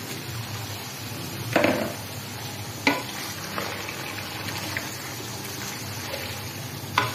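Raw bone-in chicken sizzling in hot oil with onions in a karahi, a steady frying hiss, while a wooden spoon stirs it and knocks against the pan a few times.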